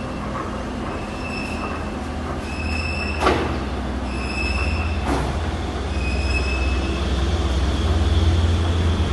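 A large Taiwanese lathe running with a steady low rumble. A brief high-pitched squeal recurs about every second and a half, and two sharp clicks come near the middle.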